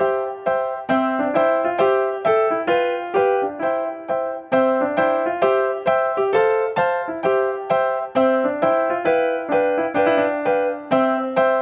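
Background music played on a piano, notes struck at an even pace of about three a second.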